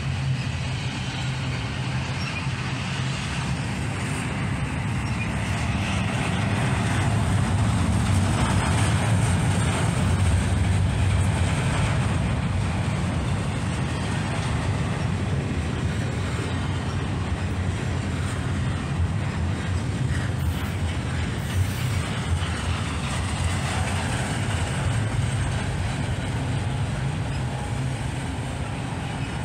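Intermodal freight train of container cars rolling past, a steady noise of wheels on rail that swells a little about a third of the way through.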